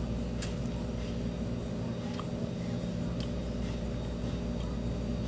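Steady low mechanical hum made of several even tones, with a few faint clicks over it.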